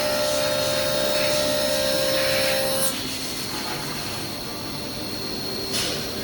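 CNC machine running and cutting: a steady high-pitched whine over a hissing cutting noise, with a lower tone that stops about three seconds in and a brief swish near the end.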